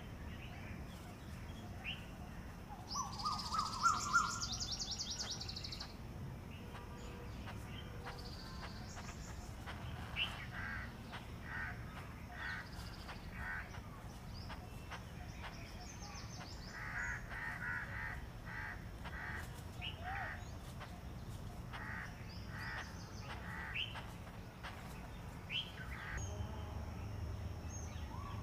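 Female Asian koel calling: bouts of short, sharp notes repeated a little under a second apart, through the middle of the clip. About three seconds in, another bird gives a louder rising burst of notes.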